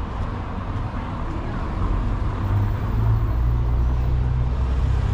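Low engine rumble of a motor vehicle close by, swelling about two seconds in, over general street noise.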